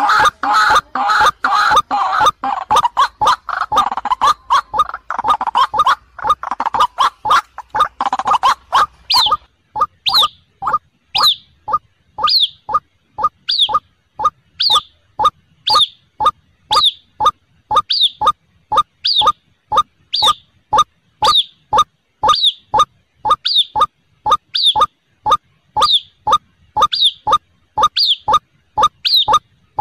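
White-breasted waterhens calling. For about the first nine seconds there is a dense, jumbled chorus of harsh calls. After that it settles into a steady series of short two-part 'ruak' notes, about one a second.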